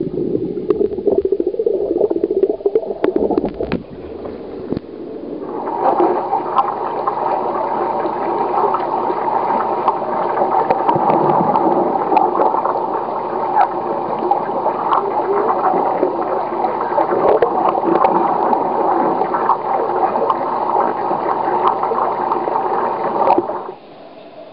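Water splashing and gurgling around a capsized whitewater canoe being rolled upright. A lower churning in the first few seconds gives way, after a short lull, to a steadier, brighter rush of water with scattered sharp splashes, which cuts off suddenly near the end.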